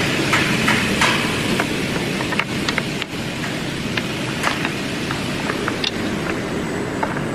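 CNC computer panel saw running: a steady machine noise with scattered short clicks and squeaks.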